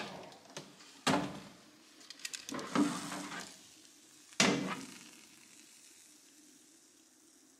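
Kitchen sounds: several sharp knocks and a run of small clatters from cookware being handled, with a steady sizzling hiss in the second half.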